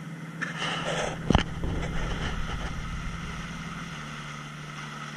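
Outboard motor of an inflatable rubber boat running steadily under way, with water and wind rushing past. A single sharp thump, the loudest sound, comes about a second and a half in, and the engine note shifts slightly about four seconds in.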